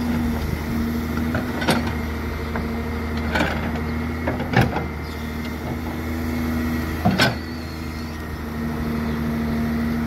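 The engine of a digging machine runs steadily at a constant speed. Several sharp clicks or knocks sound along the way, the loudest a pair about seven seconds in.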